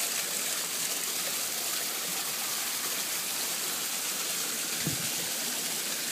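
Steady rush of a waterfall pouring into a fish pond.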